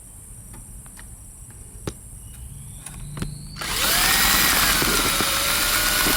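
Electric drill spinning up about three and a half seconds in and then running steadily, its pitch rising and then holding, as sandpaper taped to its bit scours corrosion off the contact inside a car's 12-volt cigarette-lighter socket. Before that there are only a few faint clicks.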